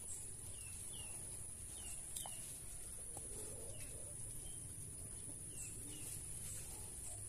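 Small birds chirping in short, falling notes, scattered and often in pairs. Under them runs a steady high insect drone and a low, even outdoor background.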